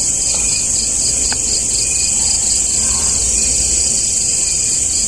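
A steady chorus of night insects, crickets chirping, with a rapid, even pulsing high chirp over a dense continuous shrill.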